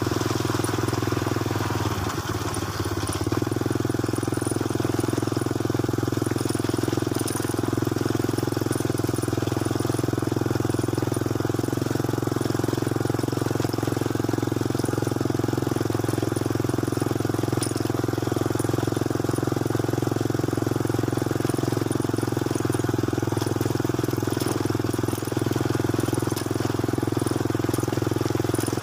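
Motorcycle engine running steadily at an even pitch while under way, with a short dip and wobble about two seconds in.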